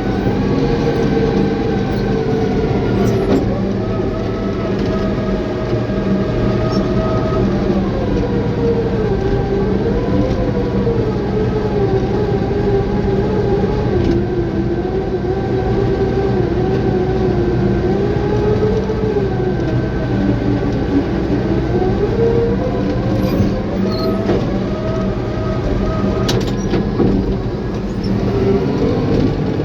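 Caterpillar bulldozer's diesel engine working steadily under load, its pitch slowly sinking and rising as the load changes, with a steady low drone underneath and a few faint clicks.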